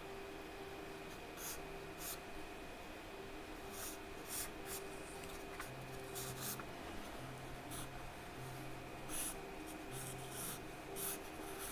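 Charcoal scratching across drawing paper in short, separate strokes, about a dozen scattered through the passage.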